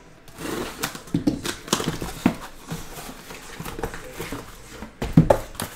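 Box cutter slicing the packing tape on a cardboard shipping box, then the cardboard flaps pulled open, scraping and rustling, with a loud thump about five seconds in.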